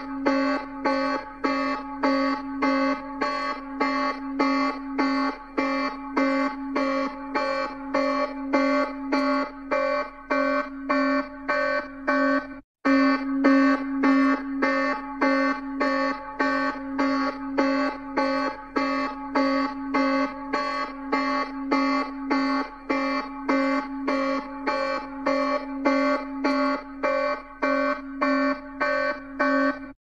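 Electronic emergency alert alarm tone: one buzzy pitch with many overtones, beeping steadily about twice a second. It drops out for an instant about halfway through, then carries on unchanged.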